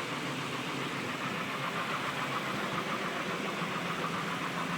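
Ford Explorer 4.0-litre SOHC V6 idling steadily with its rear timing chain tensioner and cassette freshly replaced. It runs quiet, with a slight roughness that the owner has not yet traced.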